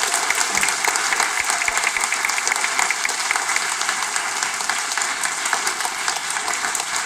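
Audience applauding, many hands clapping at once in a steady dense patter that eases slightly toward the end.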